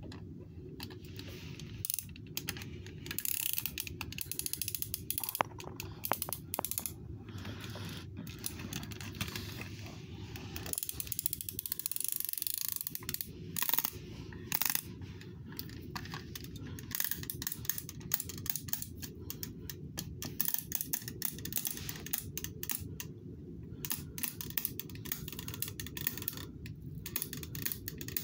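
A die-cast toy school bus handled and pushed across a wooden surface: scattered clicks and rattles from its wheels and metal body, over a steady low hum.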